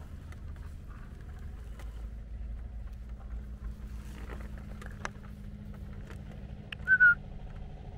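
Electric power wheelchair's drive motors humming steadily, with the wheels rumbling over grass and small clicks. About seven seconds in comes a short, loud whistle, falling slightly in pitch.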